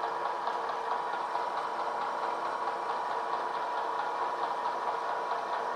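Bridgeport-type vertical milling machine running, its end mill taking a light spring pass along the casting as the table is hand-fed slowly. A steady hum with a faint, even ticking over it.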